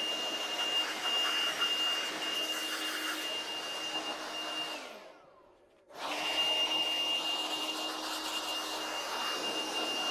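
Handheld air blower running with a steady high whine, blowing dust out of the UPS's electronics. About halfway through it winds down with a falling pitch and stops for about a second, then it is running again.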